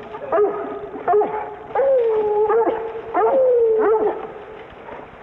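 Hunting hounds baying and barking, the cry of dogs hot on a mountain lion's trail. Short yelping barks come in quick succession, with two longer drawn-out bays sliding down in pitch about two and three seconds in.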